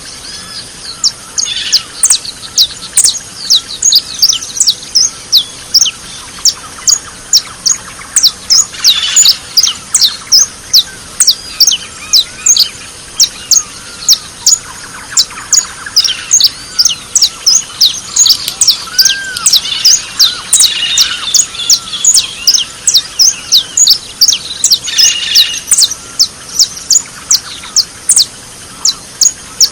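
Several small birds chirping together: a dense run of quick, high-pitched chirps, many overlapping, with some lower warbling notes mixed in.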